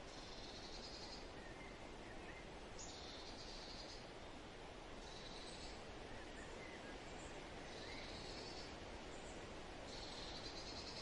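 Faint outdoor ambience: a steady hiss with a high, buzzy animal call about a second long, repeating every two seconds or so, and a few soft chirps in between.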